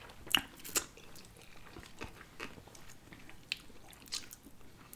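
Two people eating sushi rolls: bites and chewing with scattered short clicks and light crunches, the two loudest clicks within the first second.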